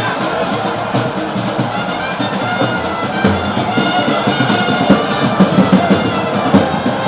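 Loud live band music with a drum kit and bass drum beating and brass horns playing held notes.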